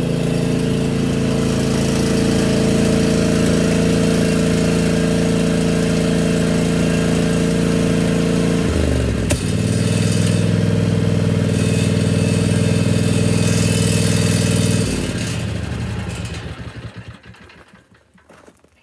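Riding lawn tractor engine running steadily, dropping to a lower speed about halfway through with a sharp click just after, then shutting off and winding down to silence near the end.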